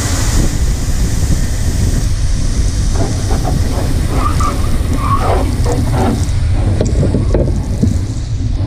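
Race car's fire extinguisher discharging into the cockpit, a loud hissing rush strongest in the first half-second and then easing, as the powder fills the cabin: the car is on fire. A steady low rumble runs underneath.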